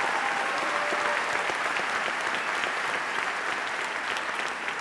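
A large audience applauding: a dense patter of many hands clapping that slowly dies down toward the end.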